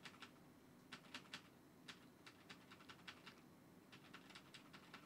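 Near silence with faint, irregular computer clicks, some coming in small quick clusters.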